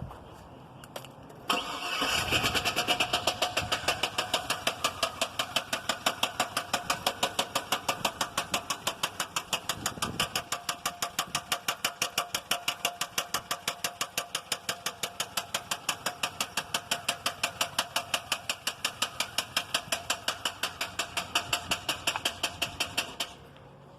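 2001 GMC Yukon XL's 5.3-litre V8 running with a sharp, regular knock, about four to five knocks a second. The knock comes in suddenly about a second and a half in and stops abruptly near the end. The knock has appeared since the owner replaced the starter.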